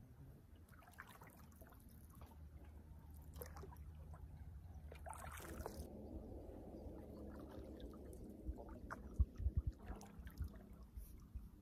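Faint water trickling and dripping, like water running off a canoe paddle, over a low rumble, with a few low knocks about nine seconds in.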